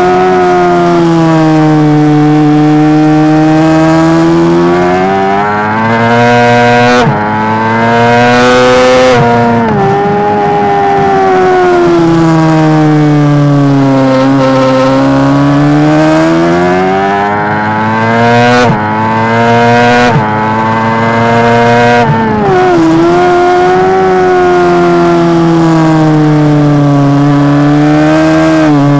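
Honda CBR600RR's inline-four engine at race pace, heard onboard. The revs climb and fall continuously, with sudden drops in pitch at gear changes, several of them in quick succession about two-thirds of the way in.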